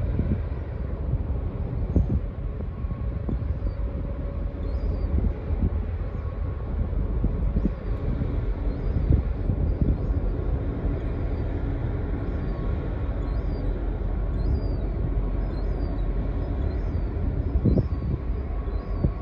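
Ben-my-Chree, a passenger/ro-ro cargo ferry, running its engines as it comes into harbour: a steady low rumble with a faint even hum. Wind buffets the microphone in uneven low gusts, and faint high chirps come and go.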